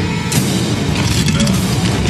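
Loud cinematic music with a heavy, dense sound, layered with sound-effect hits; a sudden hit comes in about a third of a second in.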